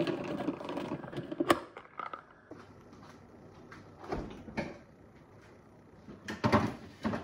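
Salad spinner whirring as its basket spins, stopping with a sharp click about a second and a half in. Later come the thuds of a fridge door opening and knocks and rattles of containers being moved on its shelves.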